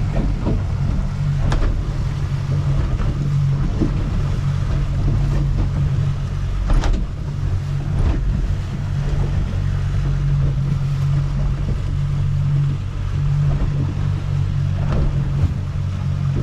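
A boat's motor running steadily under way, a low even hum with a few brief knocks from the hull.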